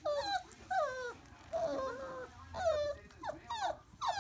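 Four-week-old wolfdog puppies whimpering and whining: a string of short, high cries, most of them falling in pitch, one after another.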